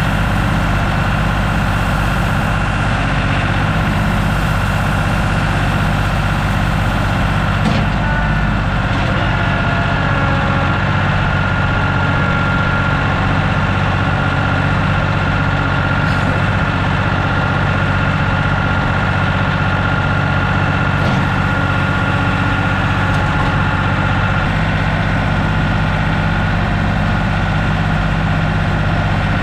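Heavy equipment engine idling steadily, a deep even drone that holds its pitch throughout.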